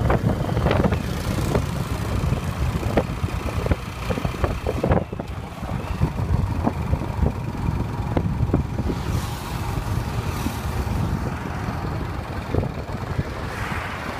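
Ride aboard a motorcycle-and-sidecar tricycle: the engine runs steadily under a heavy low rumble of wind on the microphone, with frequent short knocks and pops.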